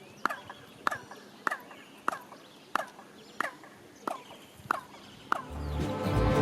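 Hand claps, about one every 0.6 seconds, each answered by a short, downward-sliding chirp echo off the staircase of Chichén Itzá's stepped pyramid, the famous bird-like echo of the site. Music fades in near the end.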